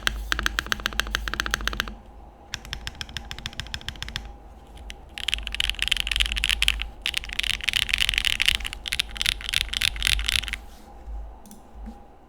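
Fast typing on a Mode Envoy mechanical keyboard with stock HMX Xinhai switches, GMK keycaps and a carbon fibre plate: dense runs of key clacks broken by two short pauses. The typing thins to a few scattered keystrokes and stops about a second before the end.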